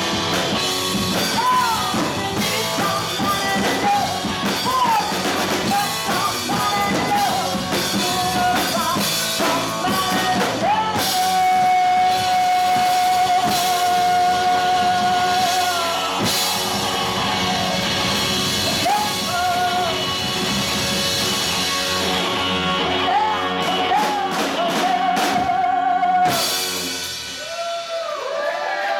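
Live rock band playing: a woman sings over electric guitar, bass guitar and drum kit, holding one long note about halfway through.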